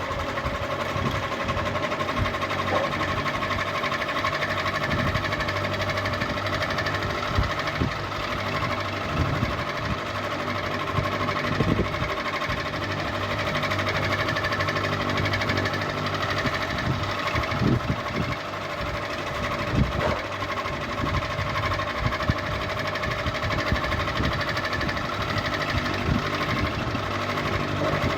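Ceiling fan running steadily with a constant hum and whine, and irregular clicking and rattling throughout.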